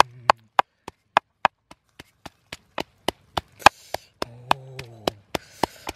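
Wooden pestle pounding red chillies in a mortar: sharp, even wooden knocks, about three to four a second.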